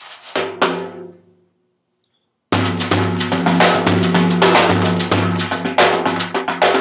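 Large frame drum struck by hand: a few strikes ring out and die away, then after about a second's gap a fast, dense rhythm of hand strikes starts abruptly over a deep, sustained boom.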